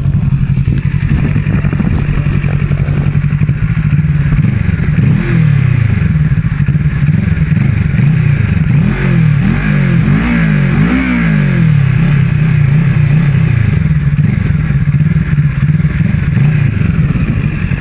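Kawasaki Ninja 650's parallel-twin engine idling, heard close to the exhaust. It is revved in several quick throttle blips through the middle, each rising and falling, then drops back to a steady idle.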